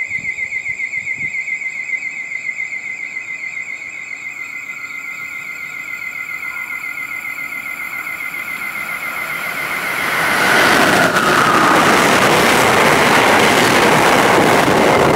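A high, rapidly pulsing warning tone from the station's train-approaching alert. About ten seconds in it gives way to the loud, steady rush of an Amtrak passenger train, an ACS-64 electric locomotive and its stainless-steel coaches, running through the station at speed on the near track.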